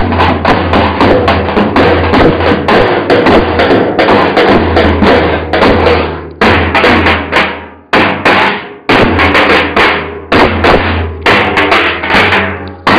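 Turkish davul bass drums beaten together in a fast, driving rhythm. About halfway through, the beating breaks off into a few single heavy strokes that fade away, then the fast playing starts up again.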